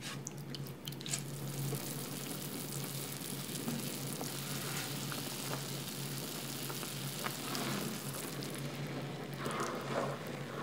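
Ground pork in liquid bubbling and sizzling at a boil in a stainless steel pan, a steady hiss with small pops. Near the end a spatula stirs through it and scrapes the pan.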